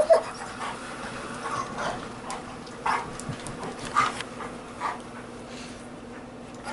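A dog whining in short, high whimpers, three brief calls about a second apart.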